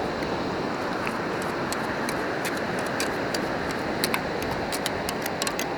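Steady rush of beach surf, with a run of small sharp clicks and rattles that grows busier over the last two seconds.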